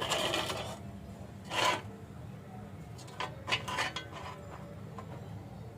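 A few short scraping and rubbing strokes of metal, separate from one another, over a steady low hum.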